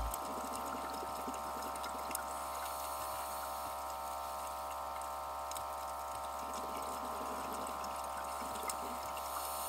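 Underwater ambience picked up by a camera in a dive housing: a steady hum with a few faint scattered clicks.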